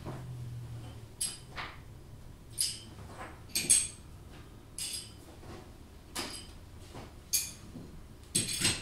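Sharp clinks of broken crockery shards being gathered from a wooden floor and set against one another, about ten irregular clinks roughly a second apart, each with a brief high ring.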